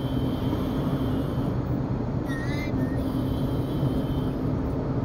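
Steady road and engine drone heard inside a moving car's cabin, with a brief high voice a little past two seconds in.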